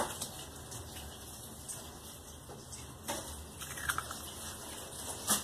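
An egg being cracked and its shell pulled apart over a mixing bowl: a few faint clicks and crackles of shell, with a sharper click near the end, over a low hiss.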